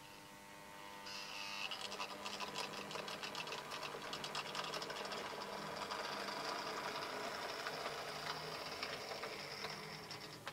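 Electric motor and gears of a much-modified 1970s Minitrix Warship diesel model locomotive (2mm finescale) running noisily along the track, a steady high whirring buzz with fast fine rattling. It picks up about a second in and eases slightly near the end as the loco moves away.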